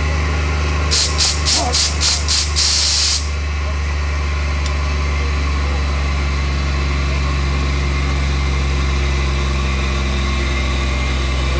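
Compressed-air locomotive exhausting in six short, evenly spaced hissing puffs, the last one longer, from about one to three seconds in. A steady low engine drone runs underneath throughout.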